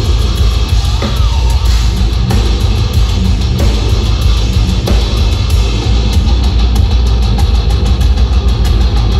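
Heavy metal band playing live at full volume, with distorted guitars, bass and drum kit, heard from within the crowd.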